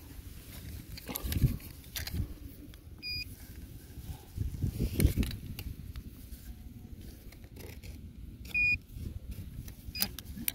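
Metal detector giving two short, high, pure-tone beeps about five seconds apart, signalling metal in the soil. Scattered knocks and scuffs from handling the tool and digging in dirt.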